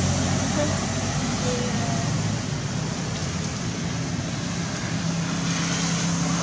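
Steady low hum of a motor vehicle engine over a broad, even hiss of background noise.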